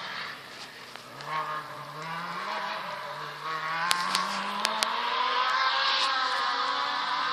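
1000 cc grass-track buggy's engine running under throttle, its pitch dipping and then climbing gradually as it is driven across the grass, with a few sharp clicks about four seconds in.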